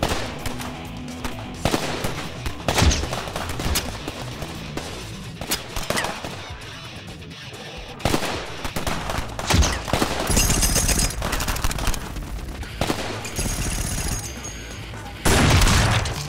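Film gunfight sound effects: scattered gunshots and rapid bursts of automatic fire over dramatic action music, with a loud sustained burst near the end.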